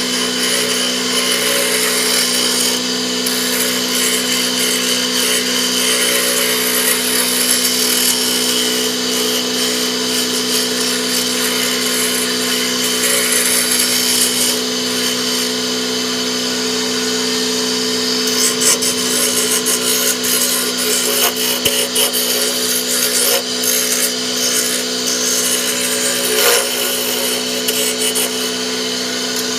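Wood lathe running with a steady motor hum while a turning tool cuts a spinning wooden knife handle, giving a continuous rasping, scraping hiss that turns rougher and more uneven past the middle.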